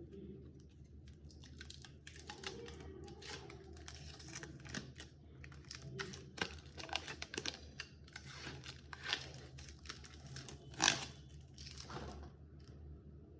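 Hands handling graphics card packaging: irregular rustling and crinkling with scattered clicks and taps, and one louder knock about eleven seconds in, over a steady low hum.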